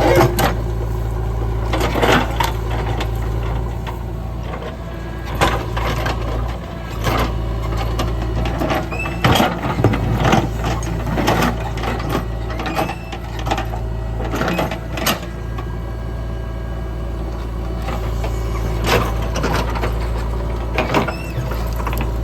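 JCB 3DX backhoe loader's diesel engine running steadily under load, with frequent sharp clanks and knocks from the machine at work as it dozes and levels soil.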